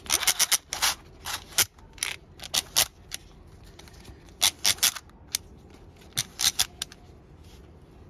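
Seat belt webbing being pulled out of an opened retractor by hand in short tugs, unwinding the belt fully off its spool: about a dozen short swishes, one cluster in the first three seconds and another from about four and a half to seven seconds in.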